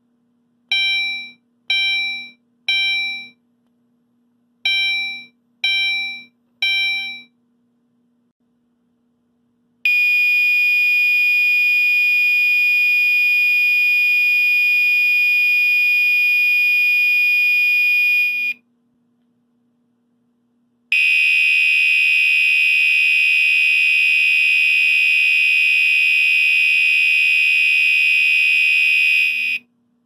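Gentex Commander electronic fire alarm horn sounding. It gives a string of short beeps, about one and a half a second, with a pause after every few. Then it sounds a steady continuous tone for about eight seconds, and after a short silence a second steady tone of about eight seconds with a different timbre.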